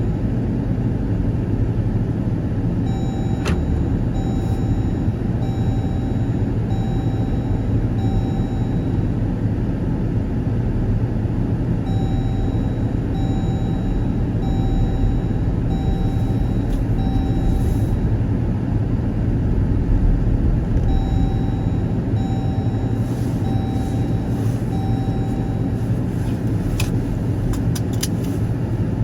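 Car driving at a steady pace, its engine and road noise making a continuous low rumble. Three runs of short, evenly spaced beeps sound over it, about one every 0.8 seconds, near the start, in the middle and later on.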